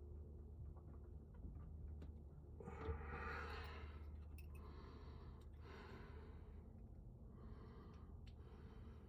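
A person sighing and breathing out heavily four times, each breath about a second long, over a low steady hum, with a small sharp click about three seconds in.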